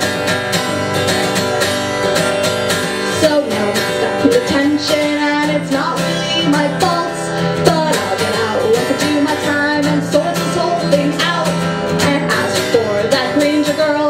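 A song played on a strummed acoustic guitar, with a woman singing over it.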